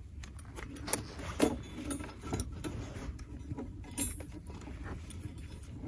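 Scattered metallic clinks and rattles of a steel two-spring body-grip muskrat trap being handled as its springs are compressed and it is set.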